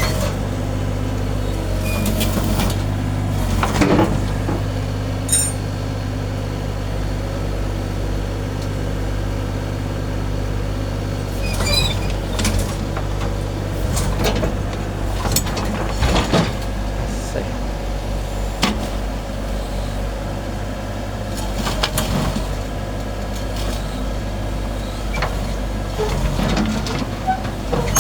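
Kubota U30 mini excavator's diesel engine running steadily, with intermittent short knocks and clanks as the machine is loaded onto a truck.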